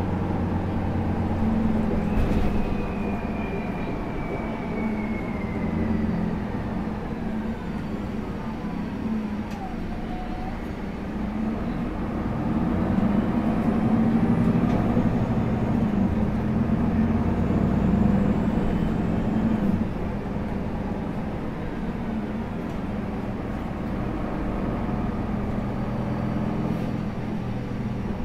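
Solaris Urbino 18 articulated bus with a Voith automatic gearbox, running under way. A high whine falls steadily in pitch over several seconds early on. The engine then grows louder for several seconds and eases back down about twenty seconds in.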